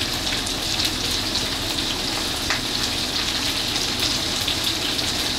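Marinated pork frying in hot oil in a pot: a steady sizzling hiss with scattered small crackles.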